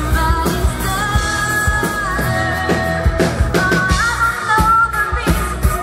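Live country-pop band playing: a woman singing held notes over acoustic guitar, electric guitar and bass, with a steady drum beat.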